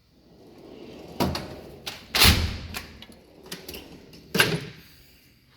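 Snap-on Epiq tool chest drawers sliding on their runners and banging shut, with smaller clicks and knocks between. The loudest bang comes about two seconds in, another near the end.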